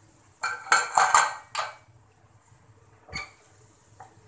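A spoon clattering and clinking against a stainless-steel pressure cooker as cooked beans and potatoes are stirred: a run of clinks about half a second in lasting about a second, then a single knock about three seconds in.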